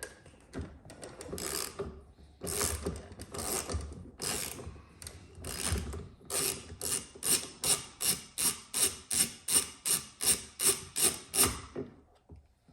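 Socket ratchet wrench loosening a 24 mm steering-wheel nut. Uneven strokes come first, then about halfway through a steady run of ratchet clicking at roughly two to three swings a second, which stops shortly before the end.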